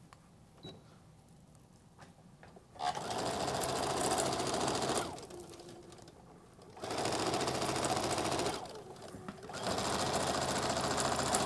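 Electric sewing machine stitching fabric. It starts about three seconds in and runs in three steady spells, stopping briefly and starting again twice.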